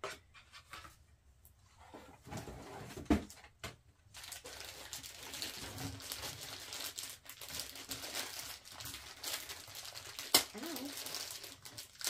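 Plastic wrapping on a vacuum-dryer hose crinkling and rustling as the hose is handled and unwrapped. There is a single knock about three seconds in and a sharp click a little after ten seconds.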